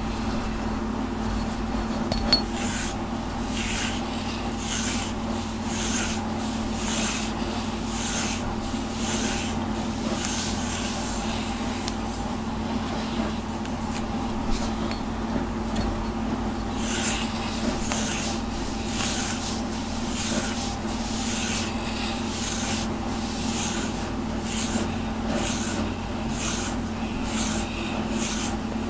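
Grooming brush drawn repeatedly through a cat's thick shedding coat, one brush stroke about every second, with a few seconds of fewer strokes in the middle and slightly quicker strokes after.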